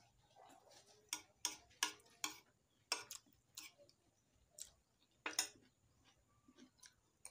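A metal spoon tapping and scraping on ceramic plates while eating, a string of sharp, irregular clicks, thickest in the first half and again about five seconds in.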